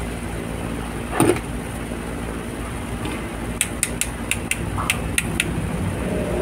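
A single knock about a second in, then a quick run of about nine light metallic taps as a small hammer strikes the metal body of an electric fan motor during assembly, over a steady low hum.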